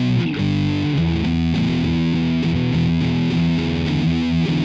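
Outro music with distorted electric guitar playing steady, changing chords.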